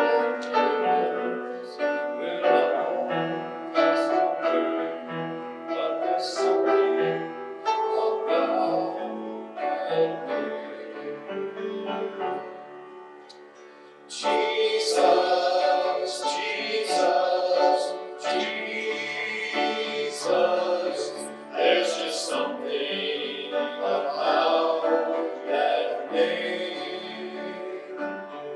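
Worship song: voices singing over piano. It drops away about halfway through, then comes back in fuller.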